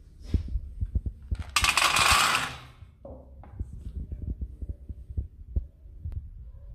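Dry dog kibble poured from a scoop into a stainless steel bowl: a brief rattling rush of pellets about a second and a half in, among light knocks and taps of the bowl and scoop being handled.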